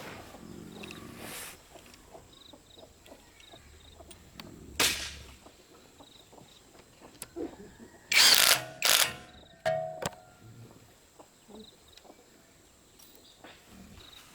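Workshop handling noise: scattered clicks and knocks of metal tools and parts, with a loud cluster of hard clanks about eight to nine seconds in and another about ten seconds in, a couple of them ringing briefly. No engine is running.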